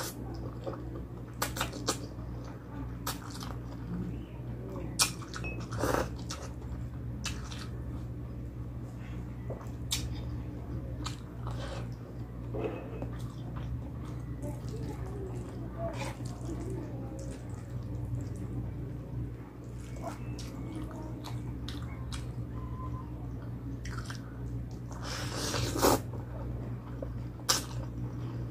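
Close-up eating sounds of palabok noodles and fried calamares: chewing and biting, with scattered sharp clicks. One louder noise near the end, over a steady low hum.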